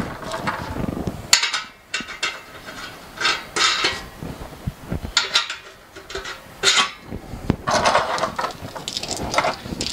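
Small loose steel parts and fittings of an autoclave clinking and clattering as they are picked up and handled on a countertop, in irregular bursts with sharp clicks.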